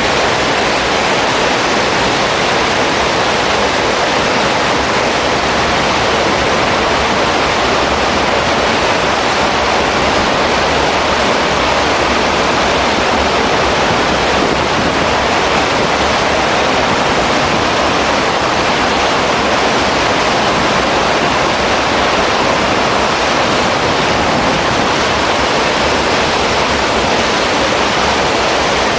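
Churning propeller wash in a motor ship's wake: a loud, steady rush of foaming water.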